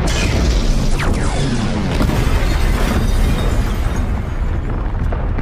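Action-cartoon soundtrack: a dramatic music score under heavy explosions and rumbling, with sweeping whooshes about a second in.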